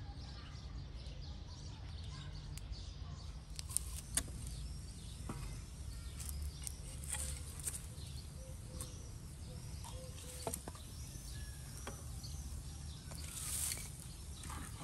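Straw and dry sticks catching fire, crackling with scattered sharp snaps as the flames take hold, over a low outdoor rumble. Small birds chirp in the background, and a brief hissing rush comes near the end.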